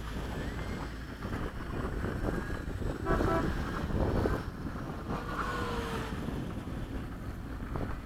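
Wind buffeting the microphone over the whine of an electric ducted-fan RC jet, which falls in pitch as it passes about five seconds in. A brief pitched tone sounds about three seconds in.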